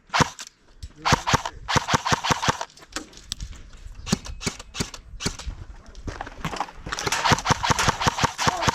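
Airsoft guns firing: single sharp cracks and rapid bursts of shots, the densest runs a second in and again near the end.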